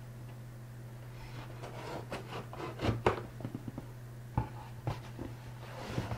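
Cardboard shipping box being cut open with a knife: a run of scratchy scraping strokes through the packing tape, loudest about three seconds in, then a few knocks of the cardboard as the box is handled.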